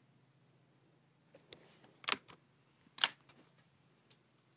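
A few sharp clicks and knocks, about a second apart, from the Savage Mark II bolt-action rimfire rifle being handled on its bench rest after the last shot.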